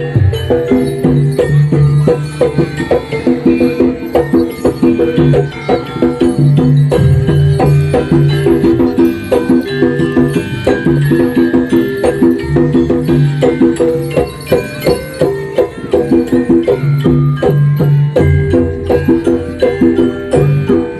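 Jaranan (kuda kepang) music: a Javanese gamelan-style ensemble of drums and tuned gongs playing a steady, busy rhythm of repeated metallic notes and frequent drum strokes.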